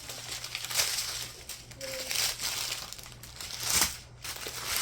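Small plastic bags of diamond painting drills crinkling and rustling as they are handled, in several irregular bursts.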